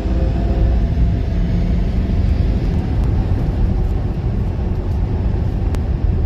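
Tire and wind noise inside a Tesla Model S Plaid's cabin at well over 100 mph on a drag run: a loud, steady low rumble. A pitched motor whine fades out within the first second as the car comes off full power.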